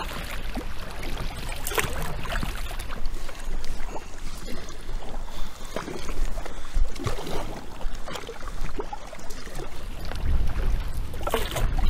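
Kayak paddle strokes splashing in the water at an irregular pace, over a steady low rumble of headwind on the microphone.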